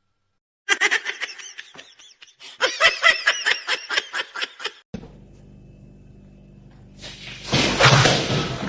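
A person laughing in rapid, repeated bursts for about four seconds. After a sudden cut there is a low steady hum, and near the end a loud rushing noise.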